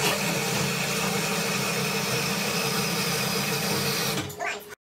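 A workshop machine running steadily, a hum with a hiss over it, that stops about four seconds in, after which the sound cuts out abruptly.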